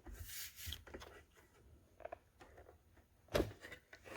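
Faint handling noise: rubbing and rustling with small knocks, and a sharper knock about three and a half seconds in.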